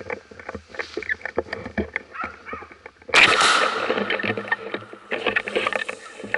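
Footsteps crunching and rustling through dry fallen leaves and twigs, a stream of irregular crackles, with a louder, denser brushing rustle starting suddenly about halfway through.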